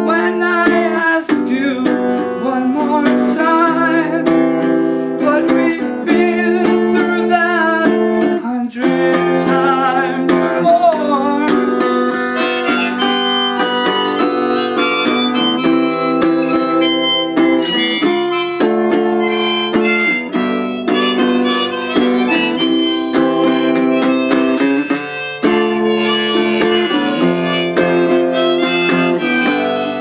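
Harmonica in a neck rack playing an instrumental break over a strummed acoustic guitar.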